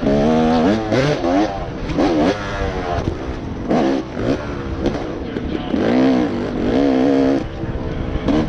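Dirt bike engine revving hard and easing off again and again, its pitch climbing and dropping with the throttle as the bike races around a dirt track, heard close up from a camera mounted on the bike.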